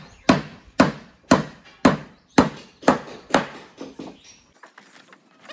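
Hammer striking wood, steady blows about two a second that grow lighter and stop a little after four seconds in.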